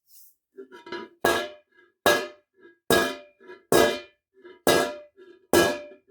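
Hammer striking a steel helmet over a ball stake to raise a dent: six loud ringing blows at a steady pace, about one a second, with lighter taps between them.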